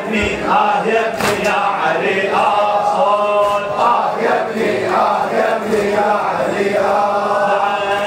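Male voices chanting a mournful Arabic lament (latmiya) in a slow, repeating melody, led through a microphone. There is a sharp slap about a second in.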